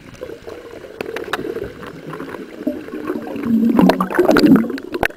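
Water bubbling and gurgling around the camera as a spearfisher comes up from a dive. It swells into loud splashing and sloshing as he breaks the surface, about three and a half seconds in.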